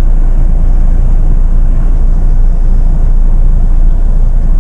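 Jeep Meridian's diesel engine and drivetrain running at low revs as the SUV crawls up a ramp, heard as a loud, steady deep rumble.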